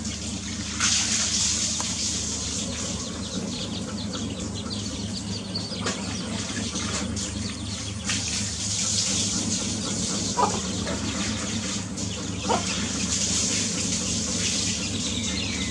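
Domestic chicks and a mother hen with a few short calls, two clearer ones about ten and twelve seconds in, over a steady rushing noise and a low rumble that are louder than the calls.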